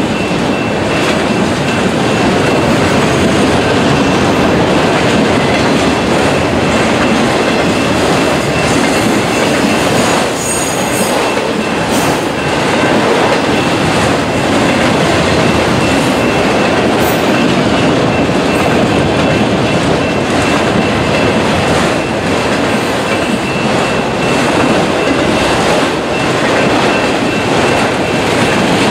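Autorack freight cars rolling past close by: a steady loud rumble and clatter of steel wheels on rail. A thin, steady high wheel squeal rides above it, with a few brief sharper squeals around the middle.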